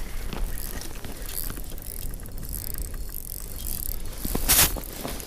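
Wind buffeting the microphone as a steady low rumble, with a short, loud burst of rustling noise about four and a half seconds in.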